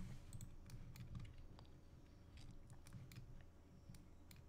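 Faint, scattered clicks and taps of a computer mouse and keyboard, over a low steady hum.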